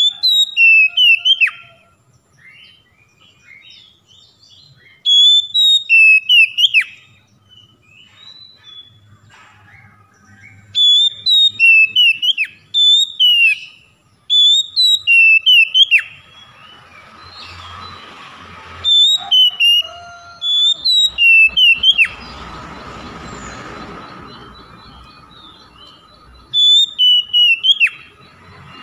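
Male oriental magpie-robin (kacer) singing loud, sharp whistled phrases in short bouts, a similar phrase repeated six times with pauses of a few seconds between.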